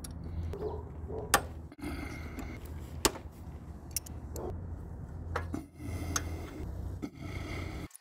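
Irregular sharp metallic clicks and clinks of wrenches being handled at a scooter's rear disc brake caliper, over a steady low rumble. The sound cuts off abruptly near the end.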